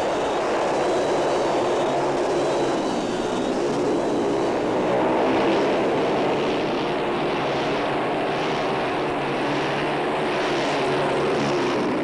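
Ice speedway racing motorcycles running hard through a turn: a steady, pitched engine drone that wavers slightly in pitch, with a rushing hiss above it.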